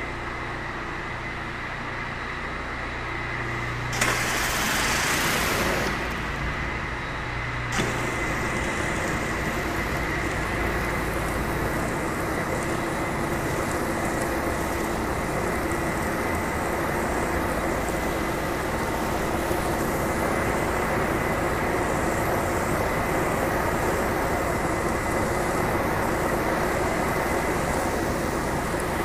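Pressure-washing machinery running steadily with a constant whine. About four seconds in, a loud hiss starts, lasts about four seconds and stops abruptly.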